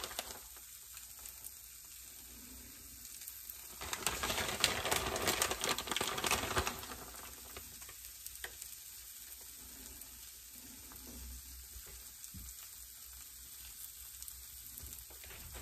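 Shredded cheese and green tomato sizzling on the hot plates of a mini waffle iron, a faint steady hiss. A louder crackling stretch comes in about four seconds in and lasts nearly three seconds.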